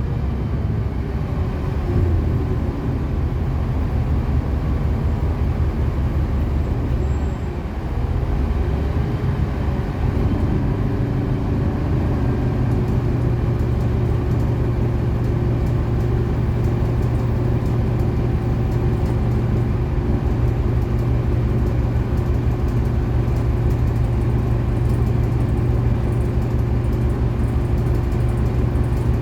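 City bus engine running steadily as the bus drives along, a continuous low drone with a brief dip about seven seconds in.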